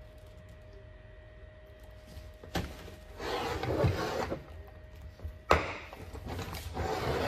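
Hand-lever grommet press punching a hole through a vinyl banner: a click about two and a half seconds in, rustling as the banner and lever are handled, and a sharp pop about five and a half seconds in as the punch goes through, the pop that means a clean hole.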